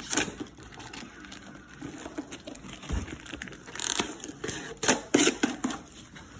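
Packaging rustling and crinkling as a new toy truck is unboxed, with a few sharper crackles about four and five seconds in.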